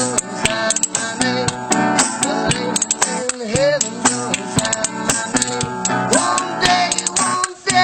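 Music led by plucked guitar, with many sharp clicking strokes running through it.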